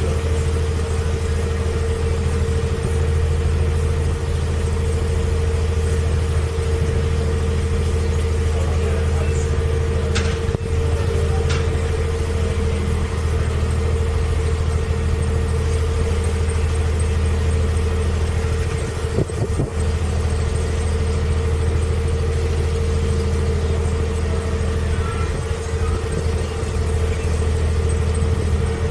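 A canal boat's engine running steadily at low revs, heard from on board the moving boat.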